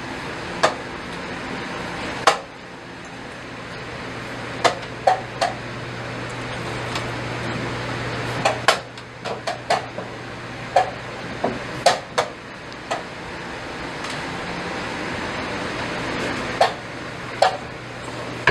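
Wooden chess pieces set down hard on a wooden board and chess-clock buttons pressed in a fast blitz game: about fifteen sharp, irregular clacks and taps over a steady background hiss.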